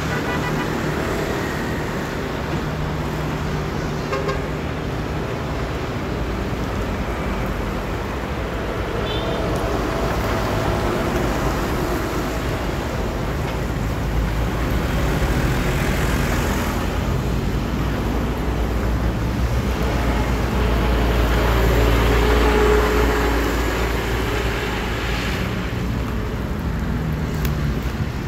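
Road traffic: motor vehicles running and passing, with a steady engine rumble. It grows louder from about halfway through, peaking as a vehicle goes by, then eases off.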